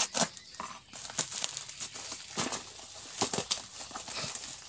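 Parcel packaging crinkling and crackling as it is unwrapped by hand, with irregular sharp crackles throughout.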